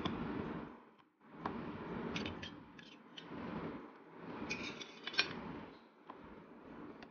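Stainless steel spoon and a small steel container clinking and scraping against a steel bowl as chopped vegetables and paneer are tipped into a thick marinade and stirred. It is a run of light metallic clinks, loudest about five seconds in.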